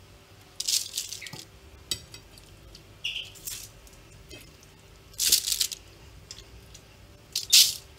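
Raw chicken pieces being set by hand onto an oiled, foil-lined baking tray, the foil crinkling in about five short bursts, the loudest near the middle and near the end.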